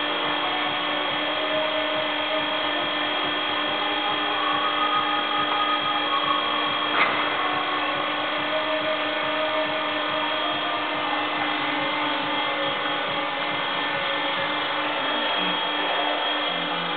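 Hydraulic power unit of a top loading arm running steadily, an electric motor and pump giving a constant whine made of several tones, with one sharp click about seven seconds in.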